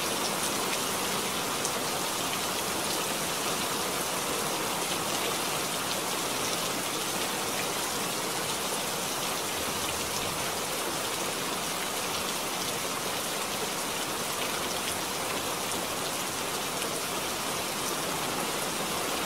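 Heavy rain falling steadily, a dense even hiss of drops pattering on surfaces.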